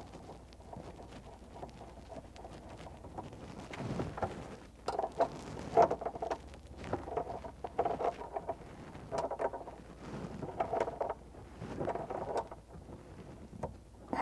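Handling rustles and small metal clicks as a flexible water supply line is threaded onto a brass tee fitting on a recirculating pump and tightened with a wrench, in irregular short bursts.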